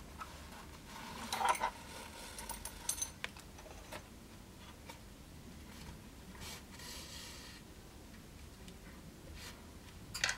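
Thread being pulled through the seam of a scabbard during hand-stitching, in a few short scraping pulls with small clicks of the needle; the loudest pull comes about a second and a half in, a softer one around seven seconds and another near the end.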